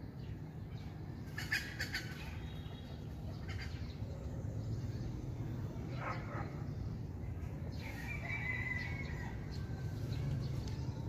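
Birds calling now and then over a steady low hum: a quick cluster of sharp chirps about a second and a half in, then single calls, one falling in pitch about six seconds in and a longer wavering one near the end.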